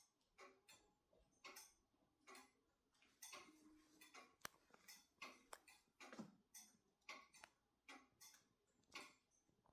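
Faint ticking of an antique Black Forest grandfather clock's movement, a soft click roughly every three-quarters of a second with a few uneven extra clicks.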